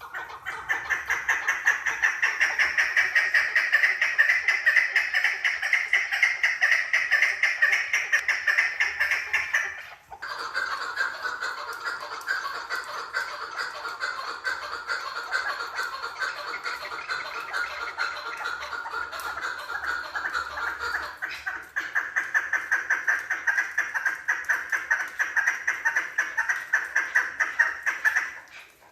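Female chukar partridge calling: a long run of rapid, evenly repeated notes, broken twice by a brief pause, about a third and two thirds of the way through. The middle stretch is lower-pitched than the first and last.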